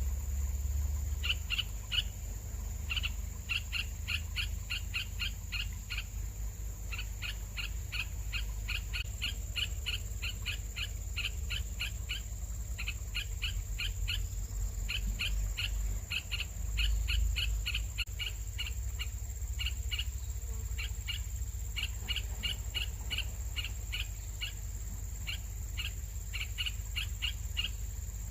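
Nestling birds giving rapid, repeated begging chirps in runs of about four to five a second, with short pauses between runs, over a low steady rumble.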